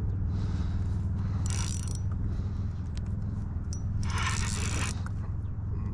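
Fishing reel being cranked while fighting a hooked catfish: a steady mechanical whirring, with two short rushing bursts, one about a second and a half in and one about four seconds in.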